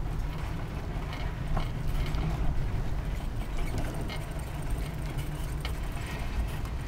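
A bicycle's freewheel ticking as the rider coasts, with a steady low rumble from the moving bike underneath it.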